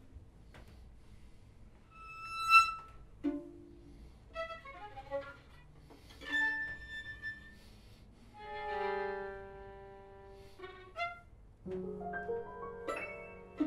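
Sparse modern chamber music for violin and piano: isolated notes and short figures separated by pauses. Just past the middle a held note swells and fades, and near the end the notes come thicker.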